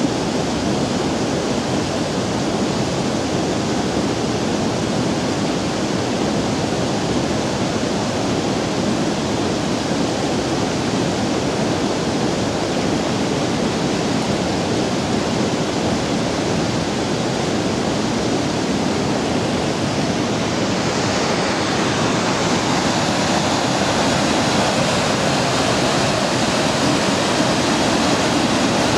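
Steady rush of a small waterfall pouring down a rocky bank. About two-thirds of the way through it gives way to a slightly louder, hissier rush of river water tumbling over boulders in a short cascade.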